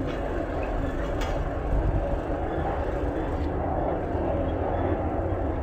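Compact utility tractor's engine running steadily as it drives along, heard as a continuous low rumble.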